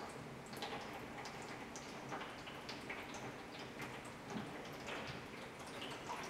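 Water draining from wet tissue-paper pulp through a mesh screen into a bowl below: faint, irregular drips and small patters.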